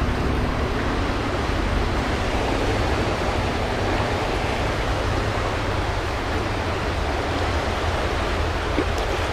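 Steady rushing of a creek running high after rain, an even wash of water noise with no breaks.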